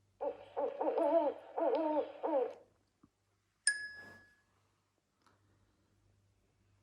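An owl hooting in a quick run of four calls. About a second after the calls stop, a single bright chime rings and fades.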